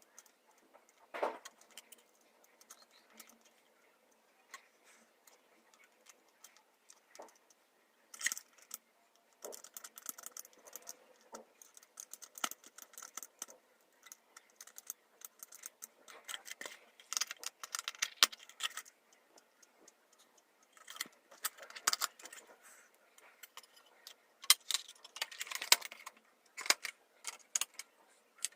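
Small plastic parts of a quartz wall clock being handled and fitted by hand: irregular clicks, taps and rattles. They are sparse at first and grow busier from about eight seconds in.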